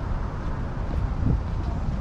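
Road traffic going by on a city street, with wind rumbling on the microphone and a couple of low thumps, one past the middle and one at the end.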